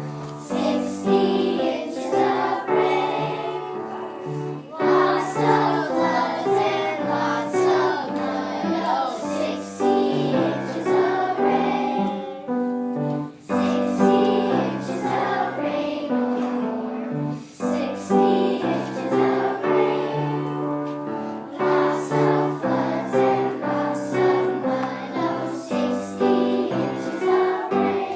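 Music: a choir singing a children's song with instrumental backing.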